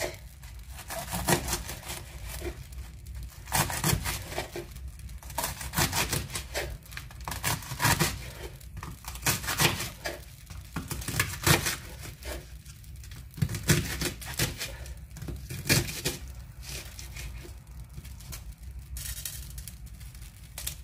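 Kitchen knife slicing through rolled savoy cabbage leaves onto a wooden chopping board: irregular crisp cuts and knocks of the blade on the board, with the leaves rustling as they are handled.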